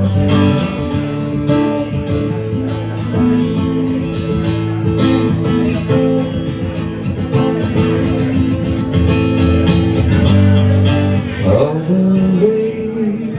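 Instrumental break between verses of a song, with a guitar playing the lead over sustained chords and a bass line.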